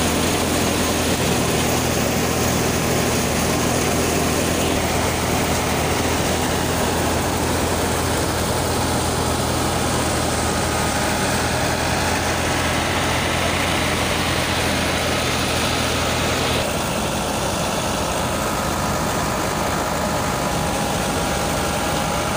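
Tractor engine running steadily, driving a belt-powered paddy thresher, with the thresher's steady machine noise. About two-thirds of the way through, the low engine hum drops away and the sound goes on slightly quieter.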